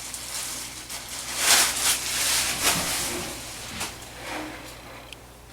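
Packaging rustling and crinkling as a new dryer drive belt is unwrapped and handled. It is loudest for a second or two, about one and a half seconds in, with a few light clicks.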